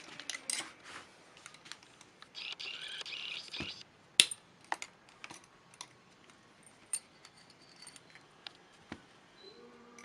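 Scattered clicks and taps of small tool parts being handled, with a brief rustle about two and a half seconds in and one sharper click about four seconds in. The jigsaw is not running.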